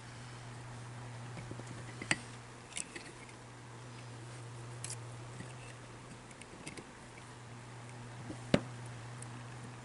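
Scattered sharp clicks and taps of small parts and tools being handled while taking apart the grinder motor's wiring, the two loudest about two seconds in and near the end, over a steady low hum.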